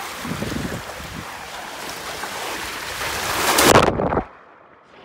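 Rushing water on a water slide, building to a loud splash into the pool about three and a half seconds in. Right after it the sound turns dull and much quieter as the microphone goes under the water.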